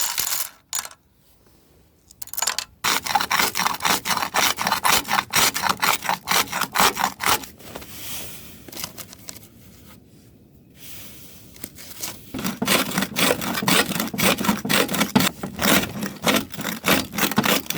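Small rock crusher grinding raw, unroasted quartz ore, a rapid run of rasping, scraping strokes that stops for a few seconds midway and then resumes. The unroasted rock crushes hard and needs a second pass.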